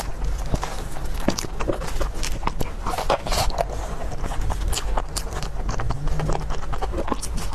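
Close-miked eating of dessert: steady chewing and crunching, with many quick clicks and wet mouth sounds.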